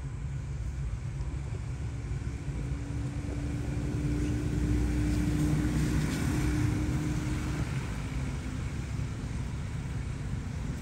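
Low rumble of a motor vehicle passing at a distance, with a steady engine hum that swells about halfway through and then fades.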